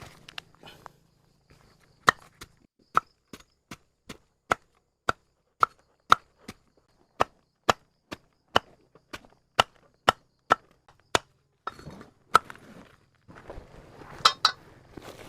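Repeated chopping strokes, sharp and evenly spaced at about two a second, for some ten seconds, followed by a few louder, irregular knocks and rustling near the end.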